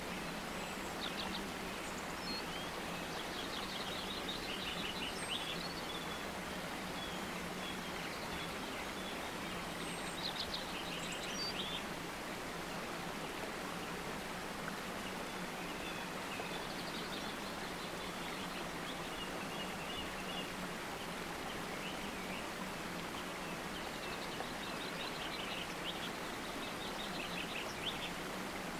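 Nature-sound bed: birds chirping in short trills every few seconds over a steady, even hiss.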